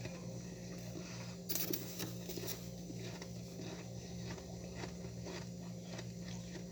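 Freezer frost crunching, as it is scraped and bitten: a loud burst of crisp crunches about one and a half seconds in, then a steady run of softer, rhythmic crunching strokes. A low steady hum runs underneath.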